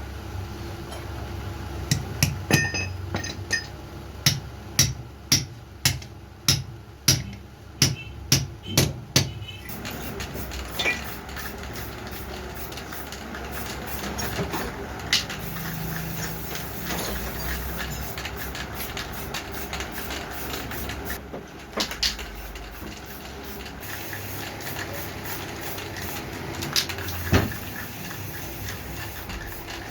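Hammer blows on metal: about a dozen sharp strikes, roughly two a second, stopping about nine seconds in, followed by a few scattered lighter knocks over a low steady hum.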